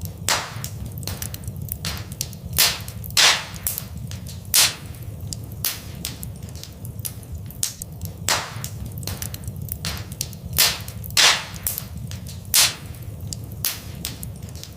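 Wood fire in a fireplace crackling, with irregular sharp pops and several louder snaps scattered through, over a steady low rumble.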